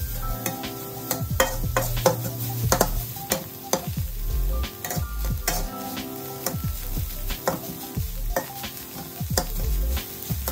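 Spatula scraping and knocking against a wok as a diced filling is stir-fried, with a steady sizzle under a quick run of clicks.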